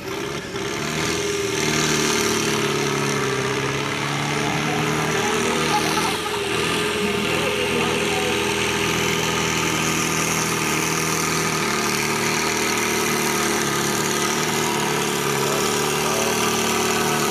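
Ford 5000 tractor's four-cylinder diesel engine running hard under heavy load as it pulls a tractor-pulling sled. It holds a steady note, with a brief dip about six seconds in.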